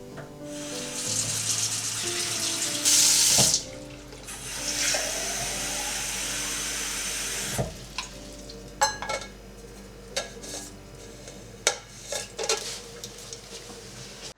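Water running from a tap into a sink in two spells, loudest about three seconds in, then a run of light clinks and knocks. Soft music plays underneath.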